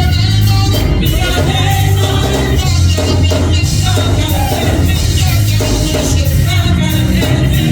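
Gospel music played by a church band with a strong, steady bass, with singing over it.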